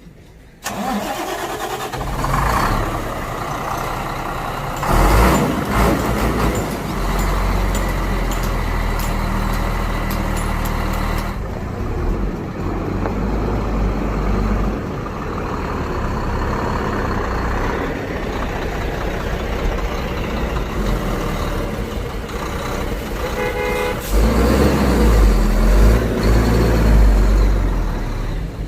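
Heavy truck's diesel engine running, with a sudden rise in level about a second in and louder, deeper stretches around five seconds in and again near the end.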